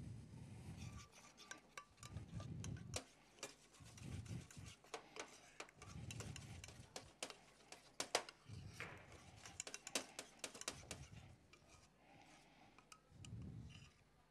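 Faint, scattered clinks and taps of metal utensils and pans being handled on a steel worktop, mixed with soft low thumps.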